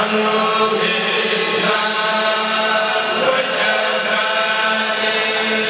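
A kourel of men chanting a Mouride khassida in unison without instruments, picked up through microphones: long held notes over a steady low held tone.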